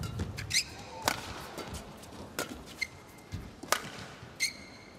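Badminton rally: four sharp racket hits on the shuttlecock, about a second and a quarter apart, with court shoes squeaking briefly on the floor between them.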